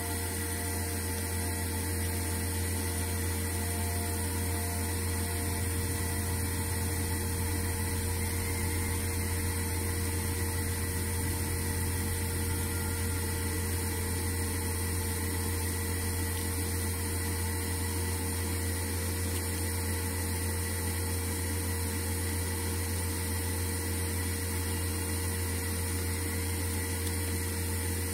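A steady low electrical hum with a few faint higher steady tones over it, unchanging throughout; no handling clicks stand out.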